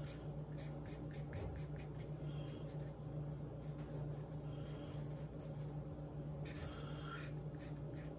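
Crayola felt-tip marker scribbling on paper, colouring in a shape with many quick back-and-forth strokes, over a steady low hum.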